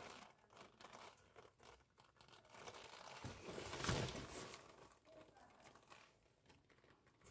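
Faint handling noise of hands and wires being moved inside a furnace cabinet: scattered light rustles and scrapes, with a louder rustling scrape from about three to four and a half seconds in.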